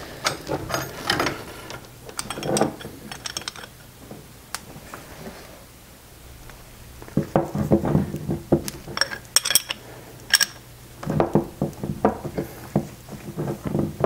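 Metal roller chain rattling and clinking as it is handled and fed over the rear sprocket, then irregular clicks and rattles as a hand chain-breaker tool is worked on the chain to push out a link pin.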